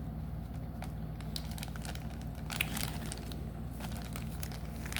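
Crinkling and rustling of trading cards and their packaging being handled, with a few sharper crackles a little after halfway, over a steady low hum.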